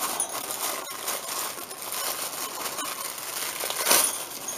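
Gift-wrap and tissue paper crinkling and rustling as a small wrapped package is unwrapped by hand, with a louder crackle about four seconds in.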